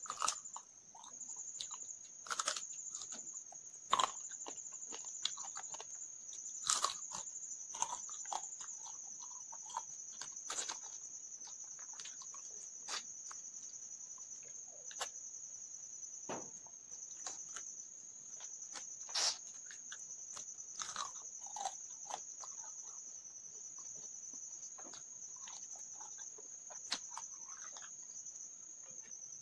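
Close-miked eating by hand: chewing and crunching of food with scattered sharp clicks and smacks, over a steady, high, pulsing insect trill.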